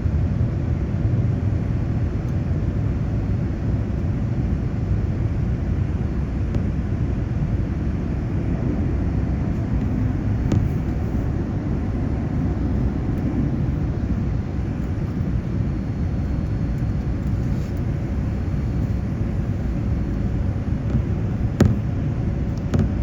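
Boeing 787 airliner cabin noise: a steady rumble of engines and airflow with a faint even hum. Two brief sharp clicks come about halfway through and near the end.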